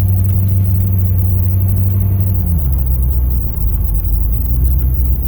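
Low, steady engine drone that drops to a lower pitch about two and a half seconds in.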